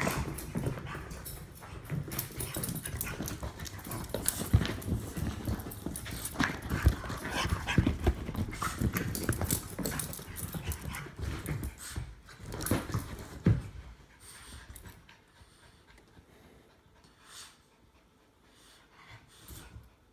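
An English Bulldog and a Jack Russell Terrier mix play-fighting: scuffling, panting and paws scrambling, with many sharp knocks and bumps. The scuffle dies down after about fourteen seconds, leaving only a few small sounds.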